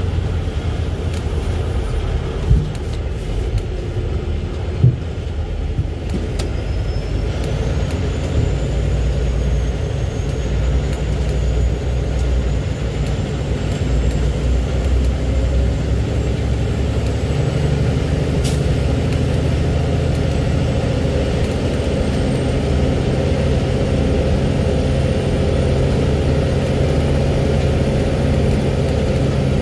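Heavy truck engine running steadily as it drives slowly on a gravel road, heard from inside the cab as a low, even rumble. There are two short knocks, about two and a half and five seconds in.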